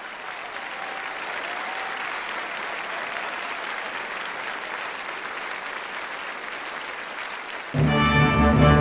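Audience applauding steadily after the song is introduced. Near the end a band with brass instruments starts playing the song's opening, loudly.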